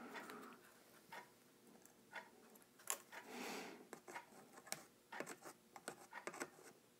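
Very faint soldering sounds: a soldering iron melting rosin-core solder on the steel casing of a volume pot, the flux giving off faint scattered ticks and a soft hiss a little past three seconds in.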